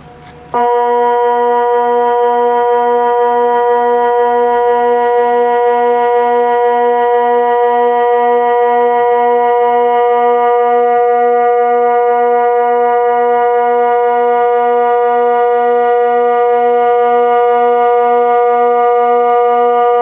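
Kockum Sonics Delta 4 electronic siren sounding the Swiss water alarm (Wasseralarm): one loud, steady, unwavering chord-like tone with a faint low pulsing beneath it, switching on abruptly about half a second in and cutting off about twenty seconds later. It is one of the long low 20-second tones that make up the water-alarm signal.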